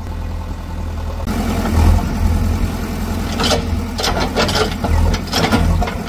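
An engine running steadily at a low pitch, with a few knocks and clatters about halfway through.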